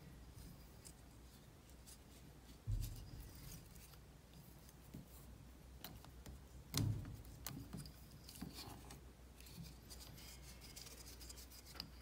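Faint handling sounds at a fly-tying vise: light ticks and rustles as fingers and a thread bobbin work a jig. Two soft thumps, about three and seven seconds in, are the loudest sounds.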